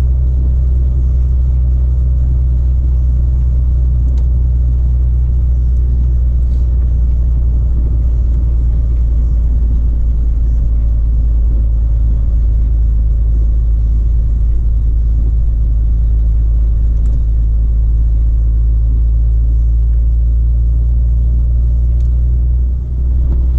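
Volvo FH16 truck's 16-litre straight-six diesel running under way, heard from inside the cab as a steady low drone, with a short dip near the end.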